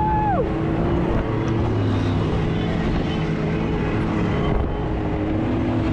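Off-road vehicle engine running steadily while driving through the dunes, with wind buffeting the microphone. A held tone near the very start cuts off within the first half-second.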